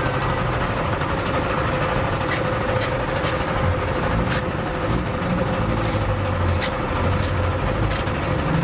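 Electric sugarcane juice press running with a steady motor hum and low rumble, with a few short sharp clicks.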